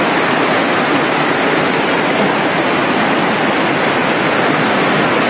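Steady, loud rushing of heavy typhoon rain and floodwater.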